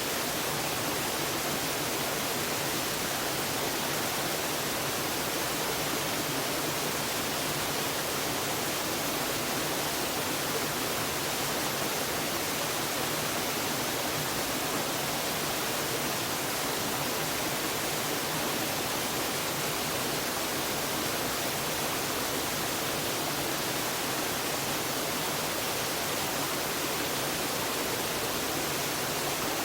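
Waterfall: water falling in a steady, even rush, mostly hiss with little low rumble.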